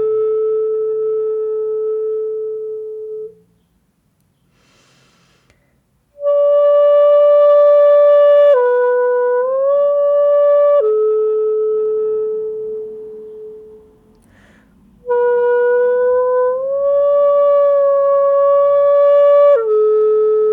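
Hitoyogiri (short Japanese end-blown bamboo flute) playing long held notes in a slow phrase. The notes step down and slide back up in pitch, and there is a short breath between phrases about five seconds in and again near fourteen seconds.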